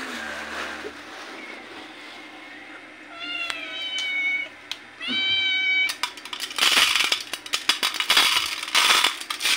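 Cats meowing a few times for food, then dry cat food rattling and pattering as it is dropped by hand onto a paper tray. The rattling is the loudest sound.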